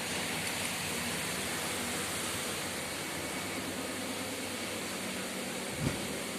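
Steady airy hiss of an air conditioner running, with one dull thump near the end.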